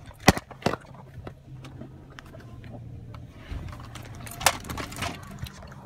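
A few sharp knocks and rustles from a phone being handled, two just after the start and two more near the end, over a steady low hum from inside a car.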